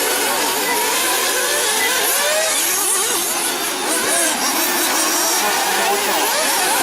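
Several 1/8-scale nitro RC buggies racing together, their small two-stroke glow engines revving up and down over one another as they accelerate and brake around the track.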